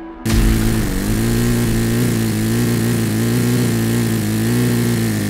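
Toyan FS-S100AX miniature single-cylinder four-stroke model engine running on 20% nitro RC fuel. It cuts in suddenly just after the start and runs steadily, its pitch dipping and recovering slightly now and then.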